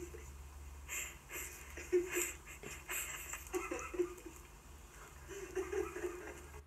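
Short vocal sounds from a dog, played from a dog video through a device's speaker, with a few clicks and a low steady hum underneath.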